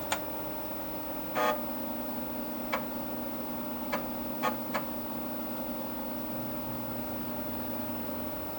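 Six sharp clicks of keys on a Dimension 68000 computer keyboard, spread over the first five seconds, over the computer's steady electrical hum. A second, lower hum sets in about a second and a half in and stops near the end.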